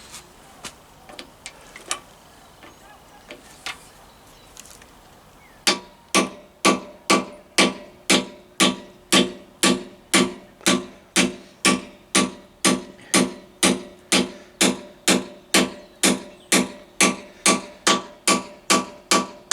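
A few light taps and clicks, then from about six seconds in a steady run of hammer blows on a metal drift, about two a second, each with a short metallic ring. The blows are driving a new metalastic handlebar bush into the top yoke of a Triumph T140 Bonneville.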